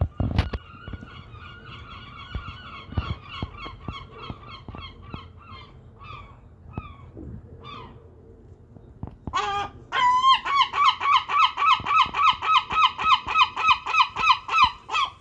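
Gulls calling: a series of repeated yelping notes that slows and fades over the first eight seconds, then, from about nine seconds in, a loud long call that breaks into rapid notes about five a second until near the end.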